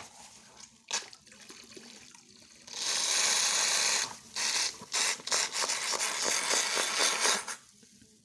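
Handled slime squishing and crackling: a few sticky clicks, then a loud hiss lasting about a second, then stop-start wet crackling for several seconds.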